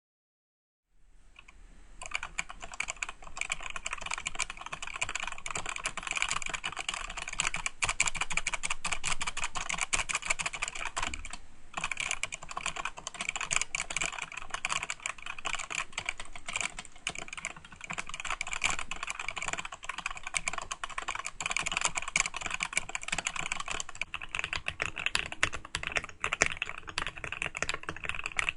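Fast, continuous typing on a mechanical keyboard, a dense stream of key clacks with a brief pause about eleven seconds in.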